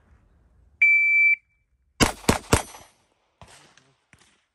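A shot timer's start beep, held for about half a second, then three quick 9mm pistol shots from an FN 509, about a quarter of a second apart, in a timed follow-up-shot drill. A few faint clicks follow the shots.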